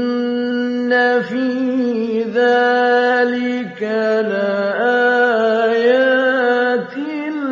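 A man's voice chanting Quran recitation in the slow melodic style, holding long ornamented notes with short dips in between.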